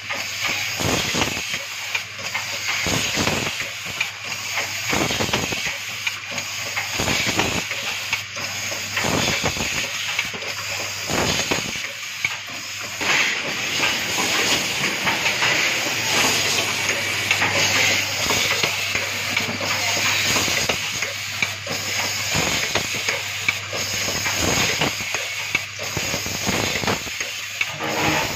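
Automatic switch-assembly machine running: a steady hiss of compressed air over a low hum, with sharp mechanical knocks about once a second as the rotary indexing table and pneumatic cylinders cycle.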